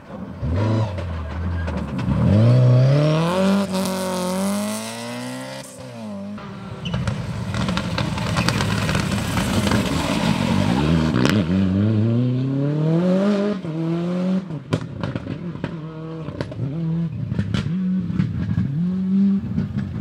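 Rally car engine at high revs, pitch climbing and dropping several times as it shifts up through the gears. The revs fall away as the car lifts off for corners, with a run of sharp pops in the later part.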